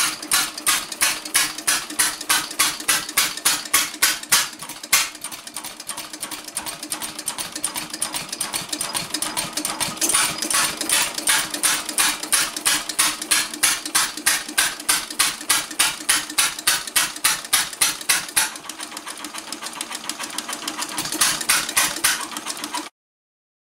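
1913 Stickney 1 3/4 HP hit-and-miss engine running, its valve gear and igniter making a fast, even clatter of about three to four clicks a second over a steady hum. The clatter weakens for a couple of seconds near the end, then picks up again before the sound cuts off.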